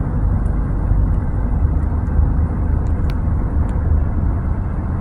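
Steady low rumble of a car's road and engine noise, heard from inside the moving car, with a faint tick about three seconds in.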